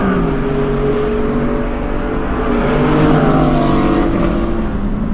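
Modified Porsche's bored-and-stroked flat-six, its two three-cylinder banks exhausting separately straight out the back so they don't blend, running hard under load. Its pitch dips right at the start, climbs steadily, then drops again about four seconds in.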